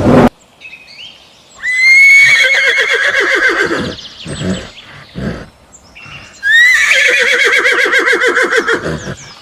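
Horse whinnying twice. Each neigh is a long call that starts with a rising squeal and then shakes rapidly up and down in pitch.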